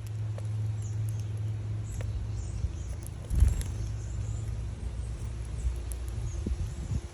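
A steady low rumble, like an engine running nearby, with a low knock about three and a half seconds in. Faint, short chirps of small birds sound above it.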